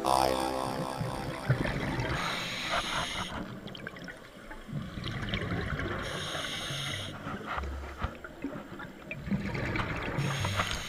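Scuba diver breathing through a regulator, heard underwater: three hissing inhalations about four seconds apart, each followed by the crackle and low rumble of exhaled bubbles.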